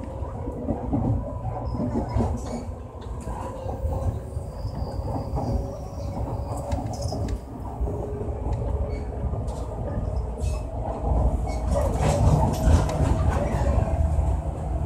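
Passenger train running, heard from inside the carriage: a steady low rumble of wheels on rail with scattered clicks, growing louder about three quarters of the way through.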